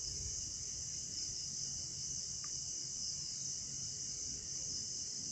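A steady, high-pitched chorus of crickets trilling without a break.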